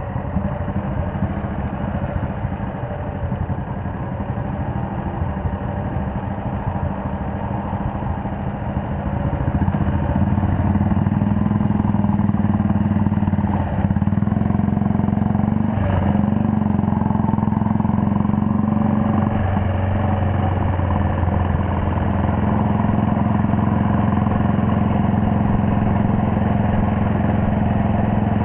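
Classic motorcycle engine ticking over, then pulling away about nine seconds in and running steadily at road speed, louder from then on.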